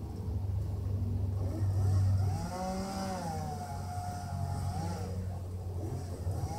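Chainsaw cutting up a fallen pine tree: it rises in pitch about two seconds in and then runs at a wavering pitch under load for a few seconds, over a steady low hum.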